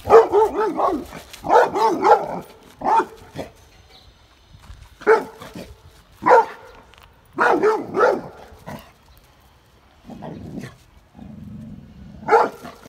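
Labrador retriever barking at calves in loud, short barks, some single and some in quick runs of two or three. A couple of lower, duller sounds come shortly before the last bark.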